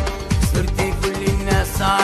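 Instrumental passage of an Arabic song: a melody over a steady drum beat and bass.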